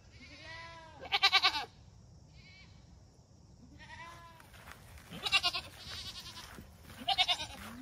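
Goats bleating: three loud, quavering bleats, about a second, five seconds and seven seconds in, with softer calls between.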